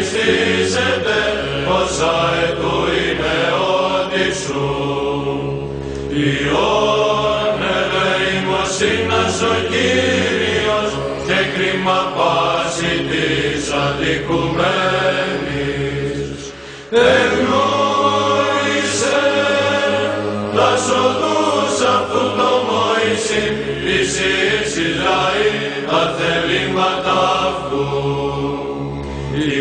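Male monastic choir chanting a psalm in Byzantine style. The melody moves over a low drone (ison) that is held for several seconds at a time and then shifts. There is a brief break in the singing about halfway through.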